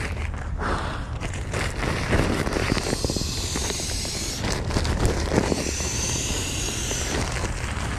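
Crinkly rustling and crackling of a Nemo Tensor sleeping pad's fabric as it is pulled from its stuff sack and unrolled by hand, over a steady low rumble.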